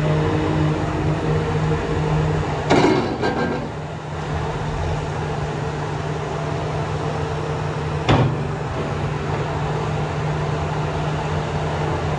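Hitachi ZX350LCH-6 demolition excavator's Isuzu diesel engine running under hydraulic load as the boom and stick move, a steady hum throughout. Two sharp clunks cut through, one about a quarter of the way in and one about two-thirds in.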